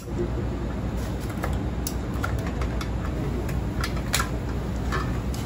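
Thick kitchen shears cutting through the shell of a cooked Alaskan king crab, giving irregular sharp clicks and snips, the sharpest about four seconds in, over a steady low hum.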